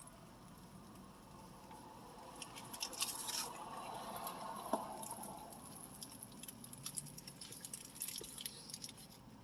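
Faint eating sounds of a person chewing a McGriddle breakfast sandwich, with soft wet mouth clicks, somewhat louder in the middle.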